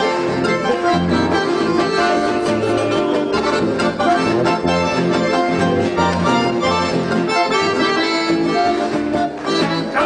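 Piano accordion playing a melody, with acoustic guitars accompanying.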